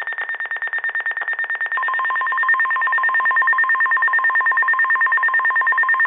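Weather radio receiver alarm going off for an incoming flood warning: rapid, even, high-pitched beeping. About two seconds in, the broadcast's steady 1050 Hz weather-radio warning tone comes in underneath, and the beeping stops right at the end, leaving the steady tone.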